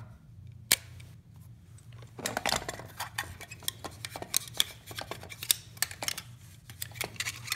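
Meopta Flexaret twin-lens reflex camera being handled and worked: one sharp mechanical click a little under a second in, then from about two seconds on a run of quick, irregular small clicks and ticks.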